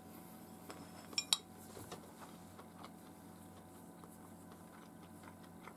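Wooden chopsticks clinking twice against a ceramic plate in quick succession, about a second in, with a short high ring.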